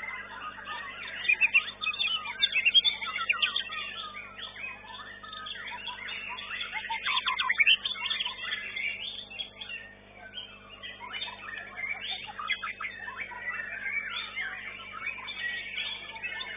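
Caged songbirds singing in fast, overlapping chirps and whistles, a white-rumped shama (murai batu) among them, over a steady low hum.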